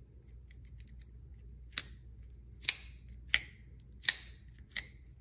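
Folding knife with a crossbar-style lock being opened and closed by hand: a string of sharp metallic clicks, five loud ones under a second apart from about two seconds in, as the blade swings and the lock bar snaps into place.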